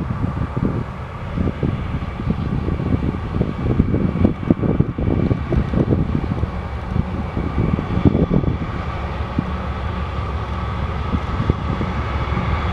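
A single diesel locomotive running light, its engine giving a steady low rumble, mixed with irregular wind buffeting on the microphone and a steady fan hum.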